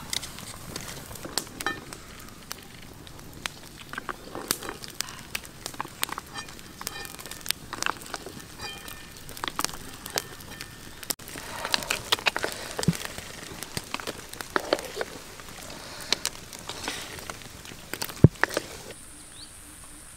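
Open wood fire crackling, with irregular sharp pops and snaps.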